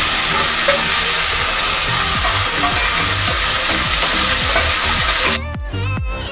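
Potato and eggplant pieces sizzling loudly as they fry in oil in a kadai, as coriander leaves with a little water go in. The sizzle cuts off suddenly about five seconds in, leaving background music with a deep thumping beat.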